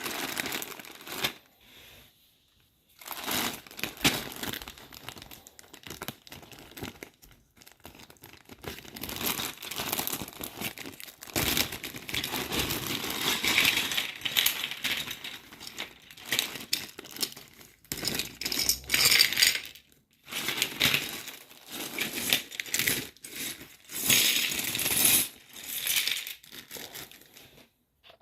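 A parcel of loose Lego pieces being unpacked by hand: packaging and small plastic bags crinkling in irregular bursts, with small plastic bricks clinking.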